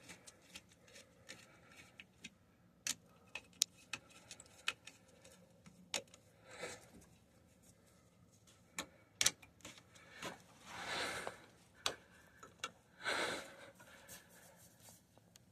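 Scattered small metallic clicks and ticks as the band clamps on a rubber drain-pipe coupling are tightened by hand tool, a little on each side, with a few brief rustles of handling.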